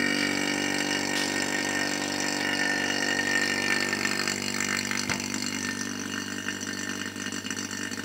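Electric rotary-vane vacuum pump running steadily, drawing a vacuum on a canister of suspension oil to boil the trapped air out of it before the shock is filled. Its sound eases off gradually over the last few seconds.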